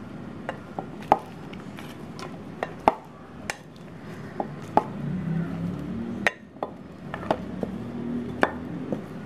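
Dried anchovies being tipped from a plate into a clay pot of gravy: about a dozen light, irregular clicks and taps of fish and utensil against the plate and pot.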